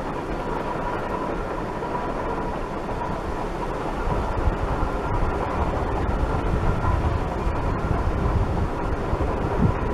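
Climax geared steam locomotive working unseen in the distance, a steady sound that grows a little louder, with wind rumbling on the microphone from about four seconds in.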